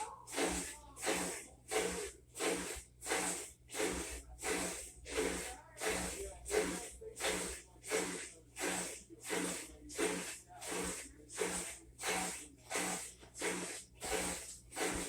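Whirlpool WTW4800XQ2 top-load washer agitating a load: water swishes in even strokes, nearly two a second, each with a short motor hum.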